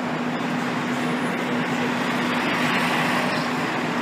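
Diesel engine of a fire engine running with a steady drone as the rig pulls out of the firehouse onto the street.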